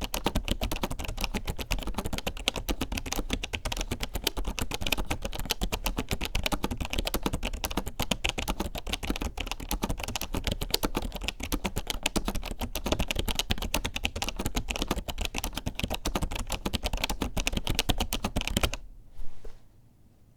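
Rapid, continuous typing on a vintage keyboard whose membrane switches the uploader takes for Alps KFNR inverted rubber buckling sleeves, said to sound weird. The keystrokes stop about 19 seconds in, with one last brief knock just after.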